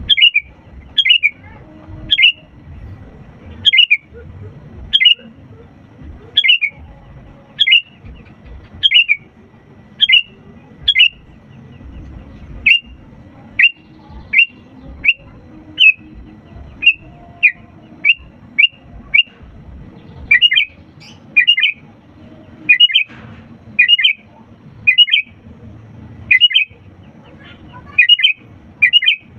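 Sooty-headed bulbul (kutilang) calling: loud, short, sharp notes repeated about once a second, turning into quick pairs of notes about two-thirds of the way through.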